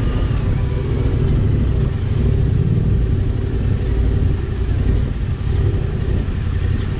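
Yamaha Ténéré 700's parallel-twin engine running steadily at low road speed, heard from on the bike as a continuous low drone.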